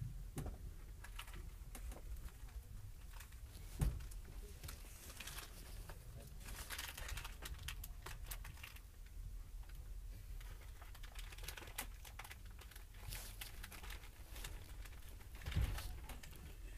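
Inside a slowly rolling passenger rail coach: a low, steady rumble with many small creaks and clicks from the car body, and two louder thuds, one about four seconds in and one near the end.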